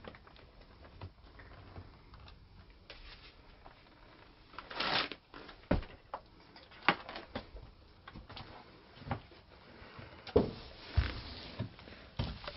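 Scattered knocks, clicks and rustles of footsteps and objects being handled in a small, cluttered room, with a longer rustle about five seconds in and sharp knocks spaced a second or two apart after it.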